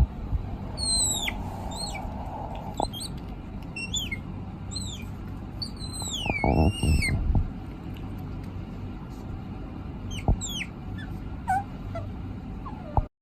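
An animal's high, squeaky calls: short whistles that fall in pitch, given singly and in small clusters over a low steady background rumble. There is a single knock about ten seconds in.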